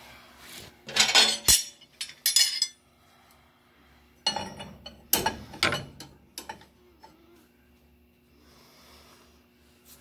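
Large steel open-end wrench clinking and clanking against the turret clutch pulley and surrounding steel of a Brunswick A2 pinsetter as it is handled and fitted onto the pulley nut. The sharp metallic knocks come in two flurries, about a second in and again around four to six seconds in.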